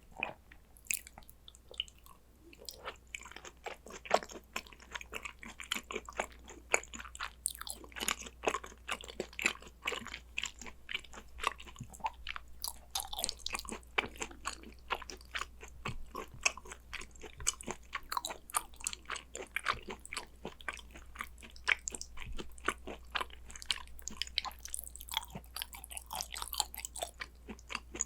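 Close-miked eating of spicy gochujang beef tartare: wet chewing and mouth smacks with quick crunchy bites, several clicks a second and never pausing for long.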